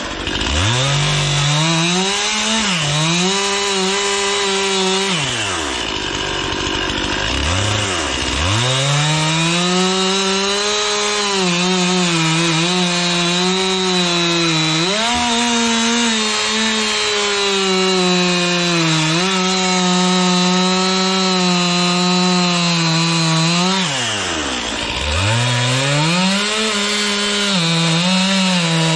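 Stihl MS261C two-stroke chainsaw cutting black locust logs into firewood rounds. The engine holds steady at high revs through each cut. It drops to idle and revs back up between cuts: near the start, about seven seconds in, and about twenty-five seconds in.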